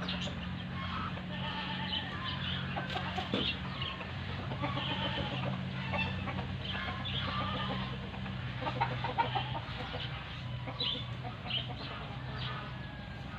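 Chickens clucking, many short calls scattered throughout, over a steady low hum.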